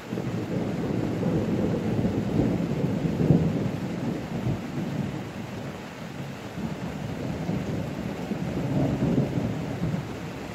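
Thunder rumbling over steady rain, starting suddenly, loudest about three seconds in, then fading and swelling again near the end.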